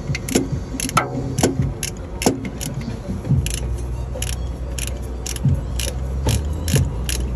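Hand ratchet clicking as it tightens the mounting bolts of a new serpentine belt tensioner, about two sharp clicks a second. A low steady hum comes in about three seconds in.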